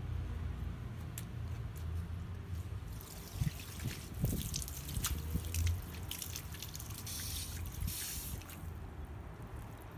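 An outdoor water spigot opened with a forged steel handle: a few light metallic clicks and knocks as the handle is worked on the valve stem, then water hissing and splashing out of the hose, heaviest a few seconds before the end. A steady low hum runs underneath.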